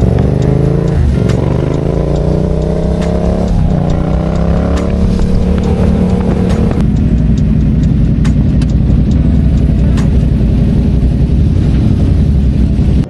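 Motorcycle engine accelerating: its pitch climbs, drops back and climbs again about three times in the first five seconds as it shifts up through the gears, then holds steady at cruising speed.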